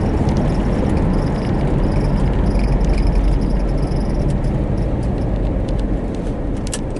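Road and engine noise inside a moving car's cabin: a steady, loud, deep hum of tyres and engine.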